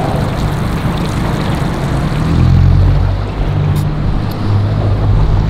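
Yamaha 70 hp outboard motor running with the boat under way, over a rush of wind and water. The engine gets louder about two seconds in as the throttle comes up.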